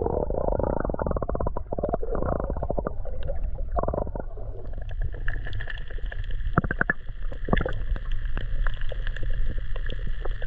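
Muffled underwater sound picked up by a submerged camera: a low rumble of moving water with many small clicks and crackles. From about five seconds in, a faint steady high hum joins it.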